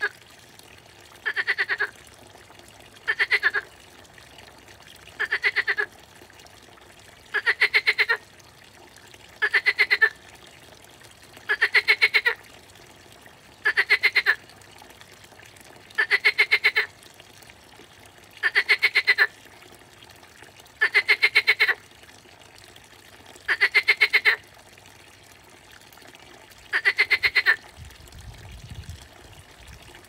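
A water frog calling from the pond: a series of rattling croaks, each a quick run of pulses lasting half a second to a second, repeated about every two seconds.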